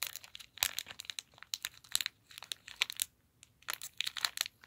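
A sealed plastic LEGO Minifigures blind bag crinkling in irregular crackles as fingers squeeze it to feel the parts inside, with a couple of brief pauses.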